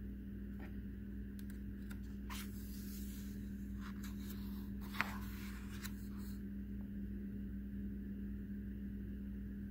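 Pages of a picture book being turned and handled: soft paper rustles and a few light taps, the sharpest about halfway through, over a steady low hum.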